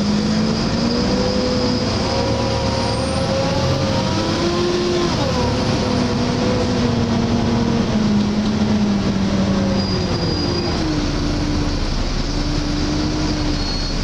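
Volvo B7LA bus's six-cylinder diesel engine and automatic gearbox pulling the bus along, heard from inside the passenger saloon. The engine note climbs and then drops sharply about five seconds in as the gearbox changes up, and drops again near ten seconds.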